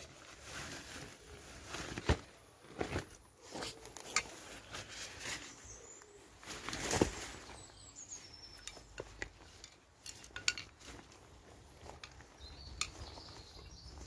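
Rustling and flapping of a nylon Lawson hammock as it is pulled out of its stuff sack and spread on the ground, with irregular clicks and knocks of its poles and fittings and footsteps on leaf litter.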